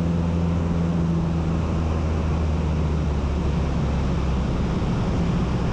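Cessna light aircraft's piston engine and propeller droning steadily in cruise, heard inside the cabin along with the rush of air; the low tone of the drone shifts slightly about two seconds in.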